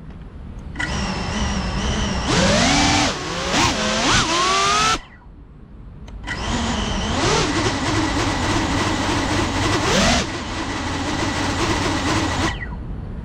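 A GEPRC CineLog35 FPV cinewhoop's brushless motors and ducted propellers whining as they spin up on the ground, in two long bursts with the pitch gliding up and down as the throttle is worked. The motors stop for about a second between the bursts.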